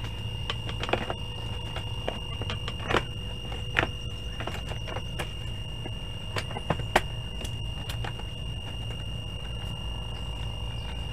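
Scattered clicks and knocks of a CRT television's plastic back cover being handled and fitted into place, the sharpest about three, four and seven seconds in. A steady high-pitched tone and a low hum run underneath.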